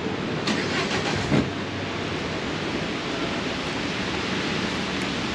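Steady hiss of rain and of traffic on wet city streets, with a short knock about a second and a half in.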